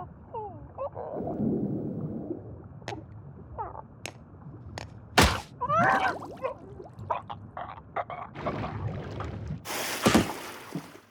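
Cartoon sound effects: short, gliding squeaky character cries, a sudden loud hit about five seconds in, and a brief rushing noise near the end.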